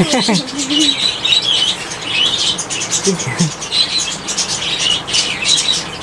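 Small caged parrots chirping and chattering continuously, a dense overlapping flock chatter, with a brief lower sound about three seconds in.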